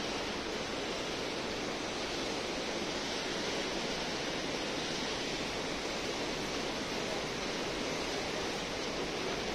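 Steady rushing noise of running water, even and unbroken, with no single sound standing out.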